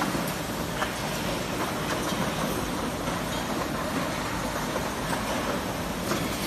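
Steady mechanical running noise of an automated multi-head soldering robot and the machinery around it, with a few faint clicks.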